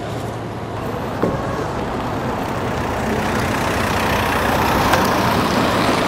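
A steady engine hum with a low drone, under a broad rushing noise that grows louder in the second half; a single knock sounds about a second in.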